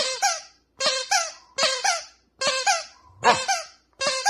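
A squeaker in a plush donut toy squeaking over and over as a corgi bites down on it: about six squeaks, each in two notes, in a steady chewing rhythm.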